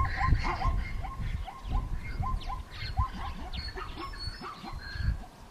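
An animal giving a quick series of short calls, about three a second, thinning out after about three seconds, over a low rumble.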